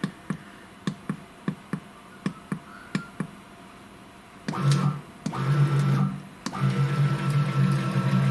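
A run of short clicks, then the CNC router's stepper motors whining as an axis jogs in three runs, the first starting about four and a half seconds in. The motors are running at a newly raised speed setting and sound a lot better.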